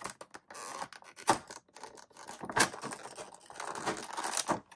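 Folding pocket knife cutting and prying at a clear plastic blister tray and its ties, with irregular plastic crinkling and scraping. A few sharp clicks break through, one about a second in, another halfway, and a few near the end.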